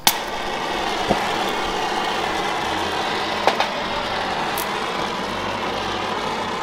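Gas welding torch lit with a sharp pop, then its flame hissing steadily, with a few small clicks along the way.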